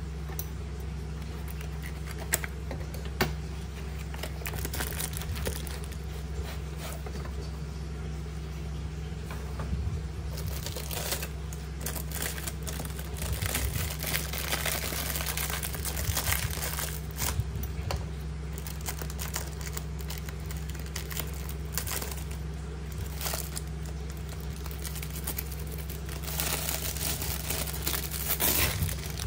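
Clear plastic wrap crinkling as it is pulled off a rolled mouse pad, loudest near the end, where scissors cut through the plastic. Two sharp taps come a few seconds in, over a steady low hum.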